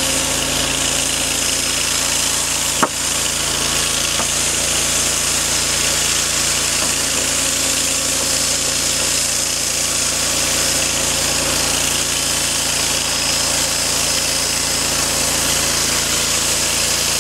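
Wood-Mizer portable bandsaw mill's engine running steadily, with one sharp knock about three seconds in.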